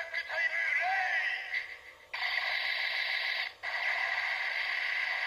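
DX Decade Ridewatch on a Ziku Driver toy belt playing its electronic sound sequence for the Kuuga finisher through its small built-in speaker. It opens with a tinny, warbling electronic call, then from about two seconds in there are two long, steady buzzing effects.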